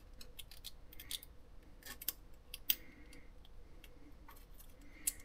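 Irregular small metallic clicks and brief scrapes of hand tools working at the exhaust valve of a GY6-clone scooter engine during a valve lash adjustment, with one sharper click about two and a half seconds in.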